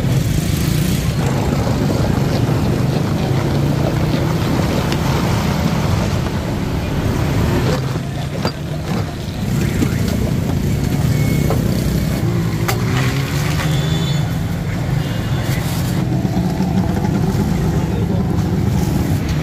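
Steady low engine hum of roadside traffic, with a few short knocks partway through.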